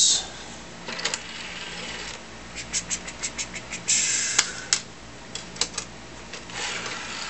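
A computer keyboard's keys clicking in an irregular run, with a few short rustling hisses between.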